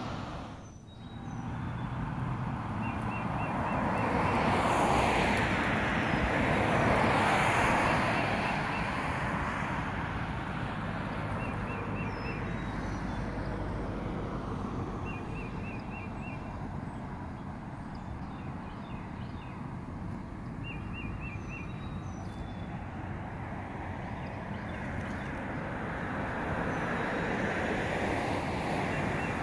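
Cars passing on a road, their tyre and engine noise swelling and fading: one pass loudest about five to eight seconds in, another building near the end. Short high chirps recur every few seconds over the traffic noise.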